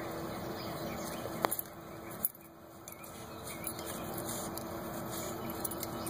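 Shar Pei dog snuffling and nosing through dry dirt and twigs, a steady rustling noise. It drops off for about a second near the middle and is broken by a couple of sharp clicks.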